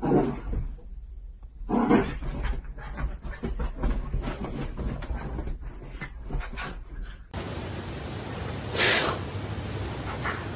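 A dog making short vocal sounds, one right at the start and another about two seconds in, with scattered clicks between. About seven seconds in the audio cuts abruptly to a hissier recording, with one loud burst near nine seconds.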